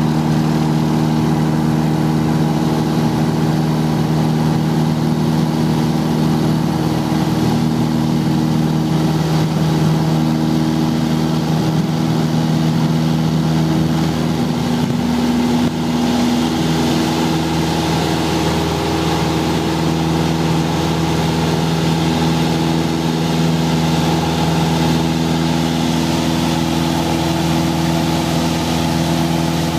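Piper Archer's four-cylinder Lycoming engine and propeller at full takeoff power, heard from inside the cabin: a loud, steady drone whose tone shifts slightly about halfway through.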